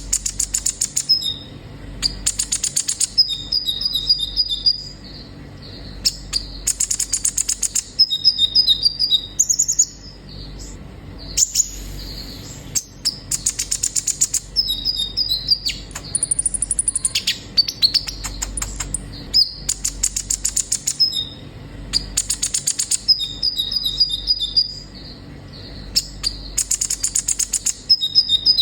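Sunbird ('kolibri ninja') singing: a fast, high, buzzy trill about a second long, then a few short sharp chirps, the phrase repeated over and over every few seconds.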